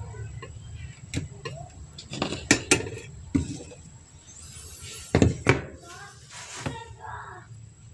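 A handful of sharp metallic clinks and knocks from handling on a workbench: the soldering iron set into its sheet-metal stand and small circuit boards and wires being picked up. The loudest knocks come in two quick pairs, about two and a half and five seconds in.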